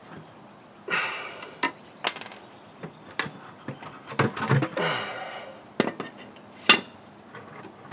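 Metal clinks and scrapes as a brake caliper bracket with its pads is worked off the disc rotor and handled. Several sharp knocks and short rattling scrapes come at uneven intervals, the sharpest a little before the end.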